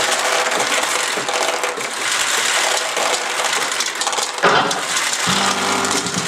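Pachinko machine with a dense, continuous metallic clatter of many fine clicks, the sound of its steel balls rattling through it. About five seconds in, the machine's own electronic jingle comes in with steady tones.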